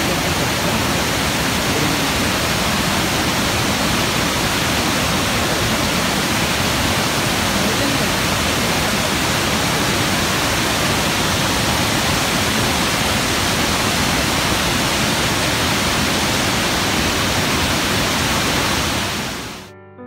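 Ryūzu Falls, a wide mountain cascade, rushing over rocks: a loud, steady wash of falling water that fades out in the last second.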